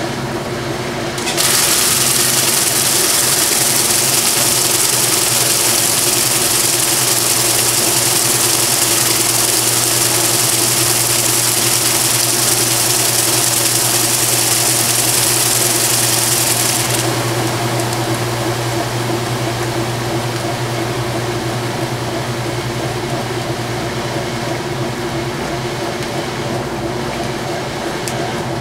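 Whirlpool-built direct drive top-load washer in its final rinse spin: the motor and drive hum steadily as the basket spins. A loud hiss joins about a second in and cuts off suddenly about 17 seconds in.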